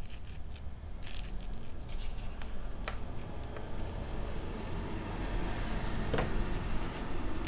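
A scalpel cutting through a headphone headband's foam padding: soft, irregular scraping and rustling, with a few sharp clicks as the headband is handled.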